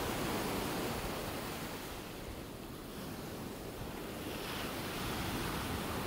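Sea water splashing and sloshing beside a boat's hull, with some wind on the microphone. The splashing swells again about two-thirds of the way through as a hooked ray thrashes at the surface.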